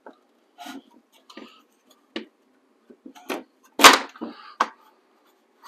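Wooden screen-door frame pieces being shifted and knocked into place on a workbench: a string of irregular knocks and clacks, the loudest about four seconds in.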